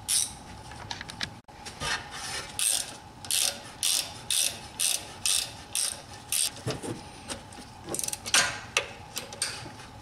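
Ratchet wrench running in the new caliper lock bolts on a BMW F10 rear brake caliper: short ratchet clicking bursts about twice a second, one per back-swing, with a louder metal clatter near the end.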